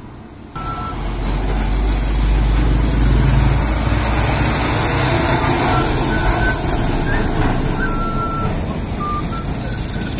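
A truck passing close by, its engine rumble and road noise starting suddenly about half a second in and staying loud, over a thin melody of single held notes on a small recorder-type wind pipe that shows through now and then.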